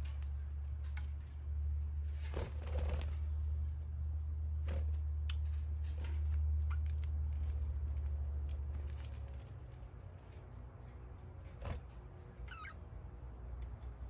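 Pet budgerigars making soft chirps with scattered small clicks and scratches, including one short wavering chirp near the end. Under them runs a low rumble that fades about nine seconds in.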